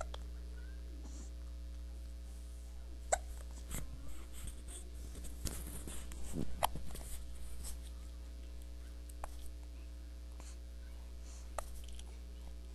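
Repeated hiccups: short, sharp catches at irregular gaps of about one to a few seconds, the loudest about three seconds in, over a steady low hum.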